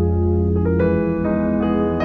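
Background music: a soft piano-like keyboard playing held chords, with new notes entering every half second or so.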